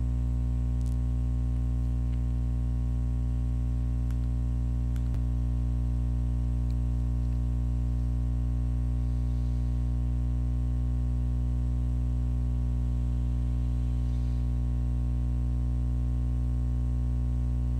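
Steady electrical mains hum: a low, unchanging buzz with many evenly spaced overtones in the recording, with a faint click about five seconds in.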